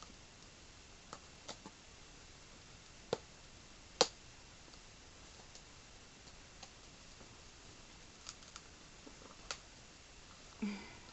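Scattered sharp clicks and taps from handling a cardboard package and its contents as it is opened, the loudest a single sharp knock about four seconds in and a short low thud near the end.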